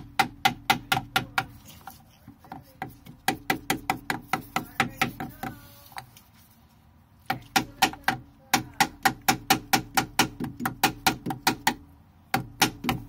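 Quick, even hammer taps, about four a second, in several runs split by pauses of a second or two. Each tap rings briefly. The taps fall on a wooden jig, driving a new output-shaft oil seal into a Velvet Drive marine transmission.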